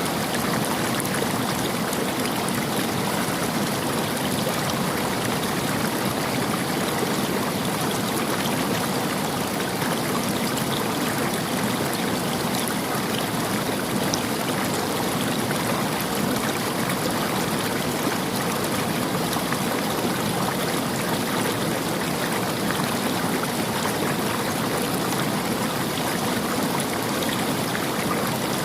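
River water running over stones in a steady, even rush.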